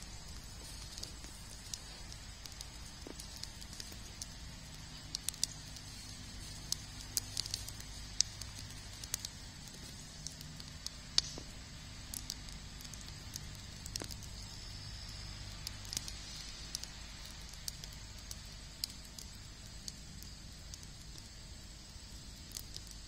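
Wood fire crackling in a steel fire ring, with irregular sharp pops scattered throughout, the loudest about eleven seconds in.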